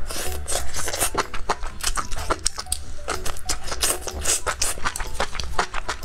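Close-miked eating: enoki mushrooms bitten off a spicy fried skewer and chewed, a rapid, irregular run of wet clicks and smacks, with background music underneath.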